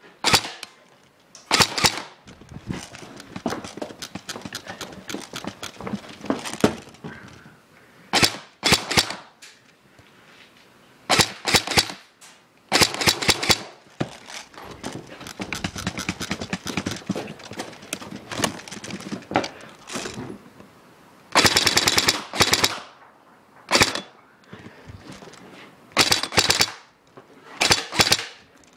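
Airsoft AEG (electric airsoft rifle) firing rapid bursts of rattling shots, some short and some over a second long. The longest burst comes about three quarters of the way through.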